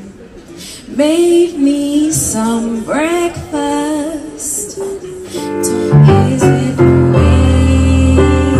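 A woman singing live into a microphone, sliding between notes, unaccompanied at first; about six seconds in an electric keyboard joins with sustained chords and a deep bass line.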